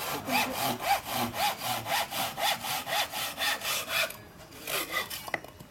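Silky Hibiki ryoba, a Japanese pull saw, cross-cutting timber in quick, even strokes of about four to five a second. The strokes pause about four seconds in, then a few more follow.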